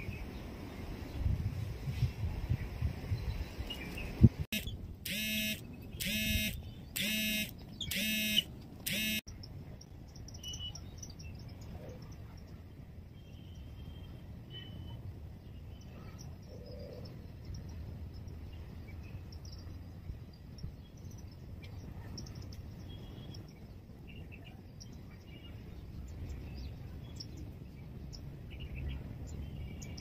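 A sharp click, then five loud, evenly spaced beeps about a second apart; after them, faint scattered bird chirps over a low outdoor background.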